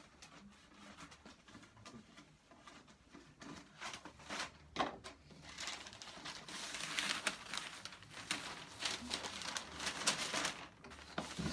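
Packing paper crinkling and rustling as it is pulled away and handled, with scattered small clicks and knocks; the rustling grows louder and denser about halfway through.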